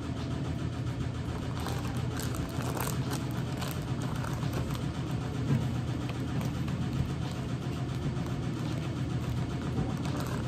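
A steady low machine hum, like a running fan or appliance motor. Over it come a few faint crinkles of a plastic zip-top bag as raw chicken breasts are put into it.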